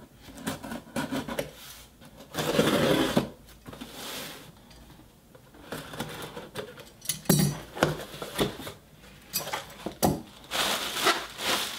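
Scissor blade scraping and slicing through packing tape along the seams of a cardboard box, with cardboard rubbing and a few sharp clicks. Near the end the box flaps are opened and the packaging inside rustles.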